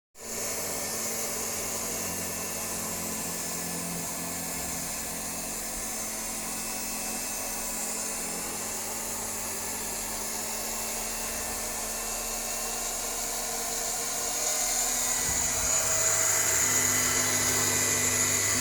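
Octa mini electric cloth-cutting machine running, a steady high-pitched motor whine that grows louder about fourteen seconds in.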